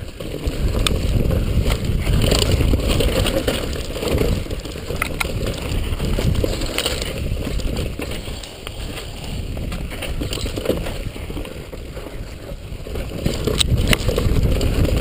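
Downhill mountain bike riding over a rough dirt singletrack, heard from a camera on the rider: a continuous rumbling rush of tyres on loose ground and wind on the microphone, with scattered sharp clicks and knocks as the bike rattles over bumps. It gets louder again near the end.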